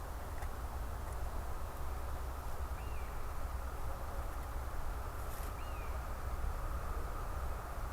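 Steady outdoor background hiss with a low rumble, and two short high chirps about three seconds apart, each a quick up-and-down note: a small bird calling.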